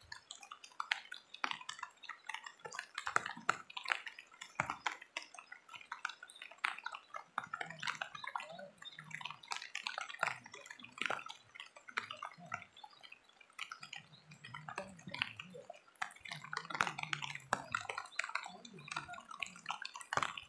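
Water splashing and dripping in quick, irregular little bursts, with small knocks, as men work in the shallows at the edge of a log raft.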